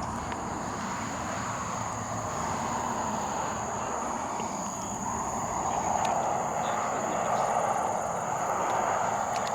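A steady rushing noise that grows louder past the middle and eases a little near the end, over a constant high-pitched drone of night insects.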